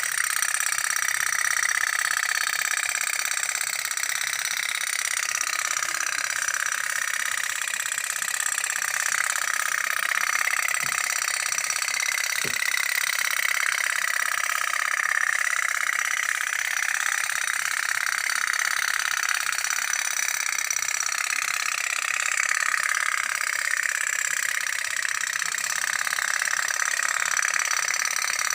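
Toy pop-pop steam boat running, a steady high-pitched putter with no low rumble.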